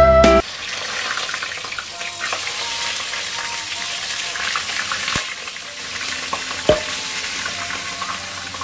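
Sausages sizzling in hot oil in a pan, a steady frying hiss with a couple of sharp clicks a little past the middle. Background music cuts off about half a second in.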